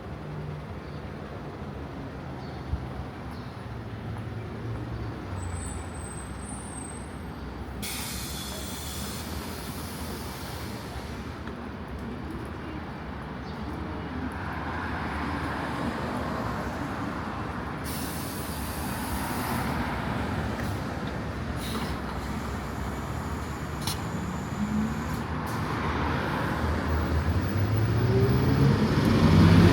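Street traffic noise, with passing vehicles and stretches of hiss. Near the end a vehicle engine grows louder and rises in pitch as it comes close.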